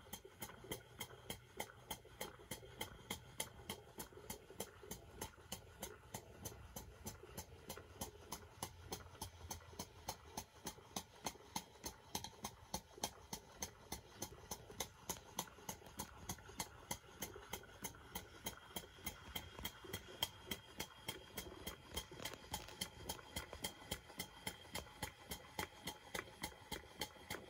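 Stuart model beam engine running steadily on steam: an even, rapid beat of exhaust puffs and valve-gear clicks, several a second, over a faint steady hiss.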